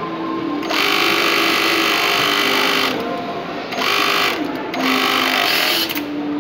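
ViBeMac V364.1 flat-bed chainstitch sewing unit stitching denim, running in three bursts. A long run starts under a second in, followed by two shorter ones, with brief stops between them while the fabric is repositioned.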